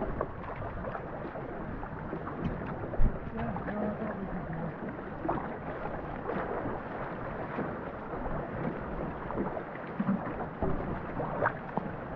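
Water rushing and splashing along a two-person racing canoe under paddle, with scattered knocks of paddles against the hull. There is a hard thump about three seconds in and a run of knocks near the end.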